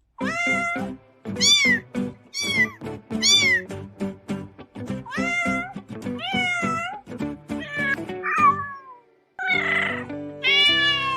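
Domestic cats meowing, a run of about nine short rising-and-falling meows one after another, over background music.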